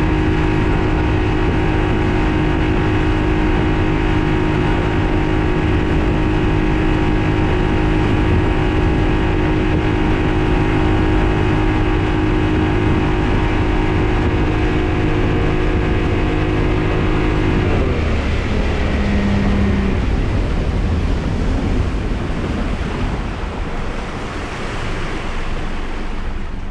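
Honda BF60 four-stroke outboard running steadily at full throttle, boat planing. About eighteen seconds in the engine is throttled back and drops in pitch, leaving mostly the rush of water and wind as the boat comes off the plane.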